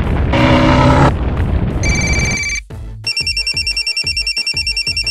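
A loud rushing roar from a burning fire. Then, from about three seconds in, a fire-station alarm bell rings rapidly, about eleven rings a second.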